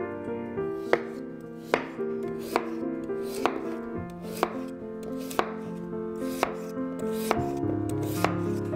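Chef's knife slicing peeled raw potatoes on a wooden cutting board: a sharp knock of the blade through the potato onto the board about once a second, over soft background music.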